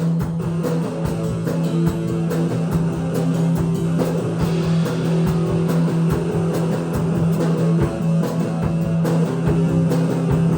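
Live rock band playing an instrumental passage: electric guitar chords over bass and a drum kit keeping a steady beat.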